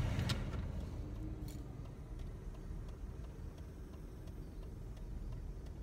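A car's turn-signal indicator ticking about twice a second over the steady low rumble of road and engine noise inside the cabin.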